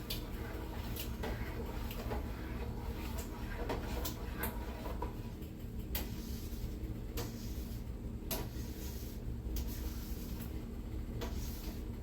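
A utensil stirring thick, sticky BBQ sauce in a pot, scraping and knocking against the pot's sides and bottom at irregular intervals about once a second, over a steady low hum.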